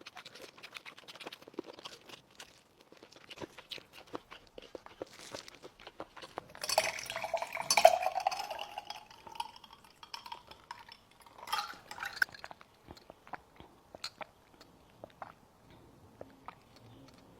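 Close-miked chewing and mouth clicks of someone eating braised chicken. A louder stretch of rustling or handling noise comes about seven to nine seconds in, with a shorter one a few seconds later.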